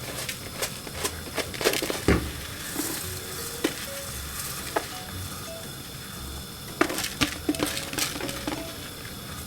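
Uncooked rice being added to a pot of boiling water and vegetables, with irregular clinks and scrapes of a utensil against the pot over a low bubbling hiss; the clinks come thickest about a second in and again near the end.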